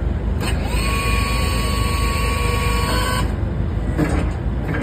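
Excavator running with the steady rumble of its engine and hydraulics while it works an Iwafuji GFB-90S forestry head; about half a second in, a high hydraulic whine rises and then holds one steady pitch for about two and a half seconds before it stops.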